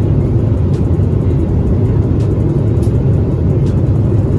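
Steady low rumble of engine and airflow noise inside the cabin of a Boeing 777-300ER airliner in flight.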